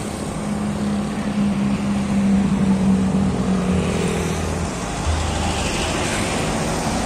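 A motor vehicle's engine passing on the road, a steady drone that dips slightly in pitch around the middle, over traffic and road noise.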